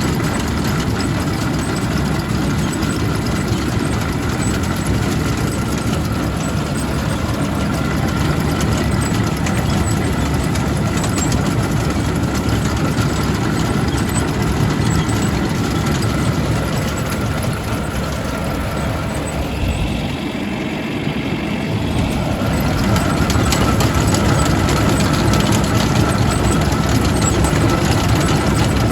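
Farm tractor engine running steadily with a thin steady whine over it; the sound dips briefly about twenty seconds in, then runs a little louder.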